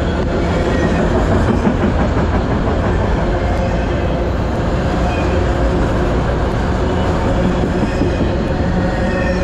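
Freight train's autorack cars passing close by at speed: a steady, loud noise of steel wheels rolling on the rails.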